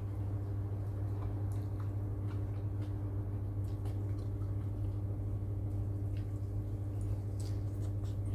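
Wet chewing and slurping from the spoon, with a few faint small clicks of a spoon against a bowl, over a steady low electrical hum.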